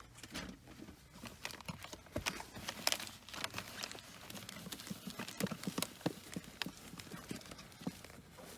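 Irregular sharp clicks and knocks, several a second, loudest around three seconds in.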